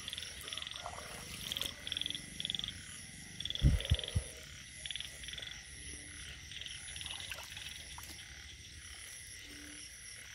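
Frogs calling in a night chorus after rain: many short, rapidly pulsed calls repeating over a steady high-pitched background. A few low thumps come about four seconds in.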